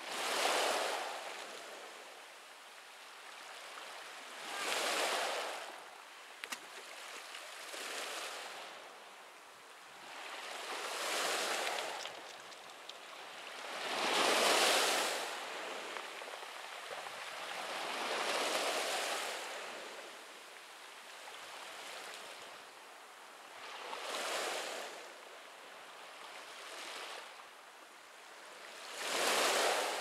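Small sea waves breaking and washing up a pebble beach, a hiss that swells and fades every three to four seconds, some surges louder than others.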